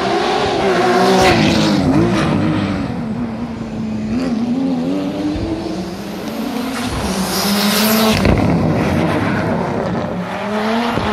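Rally cars passing one after another, their engines revving up and falling away repeatedly with gear changes and throttle lifts. About seven seconds in, a brief rushing hiss rises over the engine.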